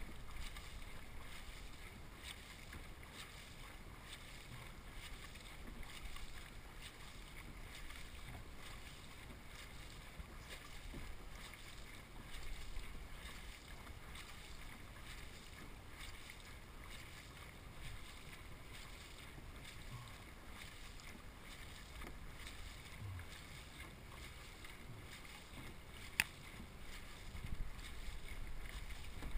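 Faint, steady water noise from a dragon boat gliding with its paddles out of the water, with one sharp click near the end. Paddles splash back into the water just before the end.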